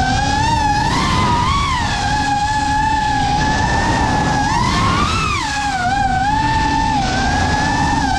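FPV racing quadcopter's brushless motors and propellers whining, the high pitch sliding up and down with throttle, with brief rises about a second in and again around five seconds in.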